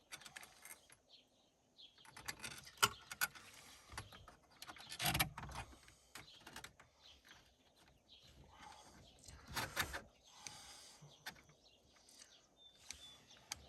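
Scattered small metal clicks, scrapes and knocks of a 6-inch wrench tightening the line fitting on a mechanical oil pressure gauge, taken up gently rather than hard. The sounds come in short irregular bunches, loudest about five seconds in and again about ten seconds in.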